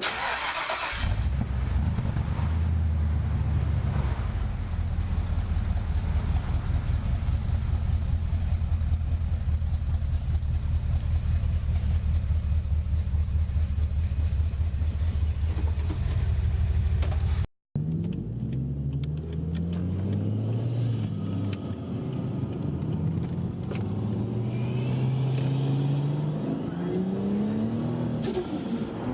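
1977 Ford XC Falcon V8 firing up and idling with a fast, even pulse in its exhaust. After a cut, the same V8 accelerates hard several times, its pitch climbing and dropping back at each gear change.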